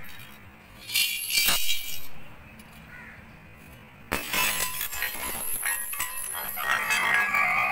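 Coins rattling inside a clay money bank as it is shaken, about a second in. About four seconds in the terracotta bank smashes on stone tiles, and coins scatter, clinking and jingling across the floor.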